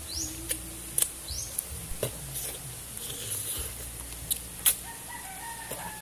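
Fowl and small birds calling over a steady low rush: two quick rising chirps in the first second and a half, and a rooster crowing near the end, with a few sharp clicks in between.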